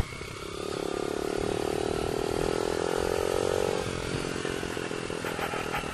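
Motorcycle engine running under way, its pitch climbing slowly for about three seconds before it eases off about four seconds in.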